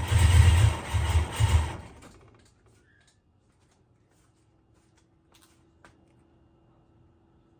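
Procharger-supercharged LS V8 running roughly in uneven surges, then dying about two seconds in, followed by near silence with a few faint clicks. The engine would only run a few seconds before shutting off, which the owner puts down to something in the base tune.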